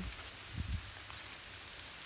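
Steady hiss of wintry mix, sleet and snow, falling on the ground and plants. A brief low rumble about half a second in.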